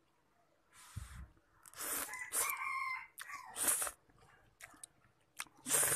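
A rooster crowing once, a pitched call lasting about a second, with several short hissy bursts of noise around it.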